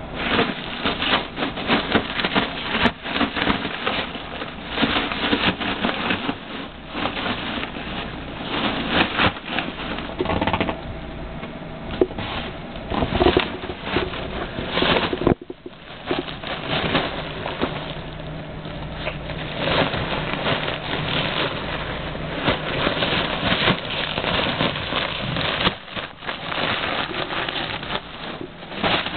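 A French bulldog biting and mouthing a birthday balloon: continuous crinkling and crackling with many quick clicks and rustles, broken by a brief lull about halfway through.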